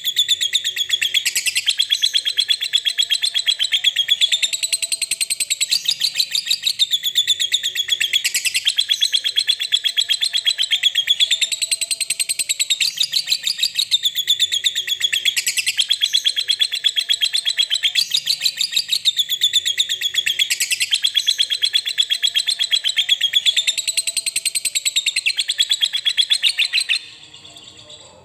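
Lovebird's long, rapid chattering trill ('ngekek panjang'), high-pitched and unbroken, swelling and easing in a pattern that repeats about every four seconds. It stops abruptly near the end.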